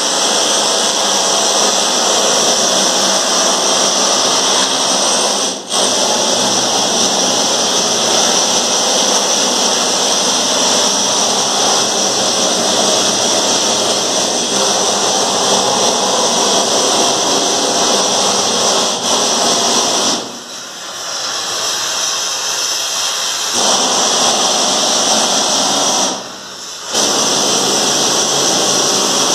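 Metal-cutting work on a riveted steel ship's hull: a loud, steady rushing hiss. It stops for a moment about six seconds in and again near the end, and is lower for a few seconds around twenty seconds in.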